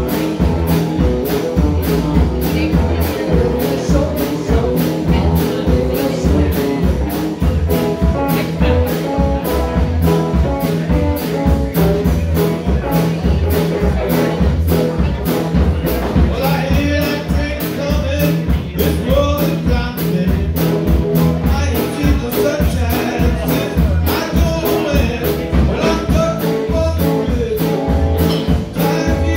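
Live band playing an upbeat blues-rock number on electric guitars and a drum kit, with a woman's singing coming in about halfway through.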